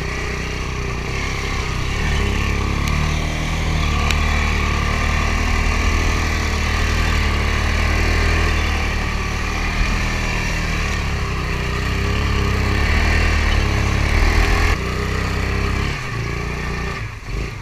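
The engine of a snorkeled 1998 Yamaha Grizzly 600 ATV running steadily under throttle as the quad wades through deep muddy floodwater. The engine note shifts about fifteen seconds in and eases near the end.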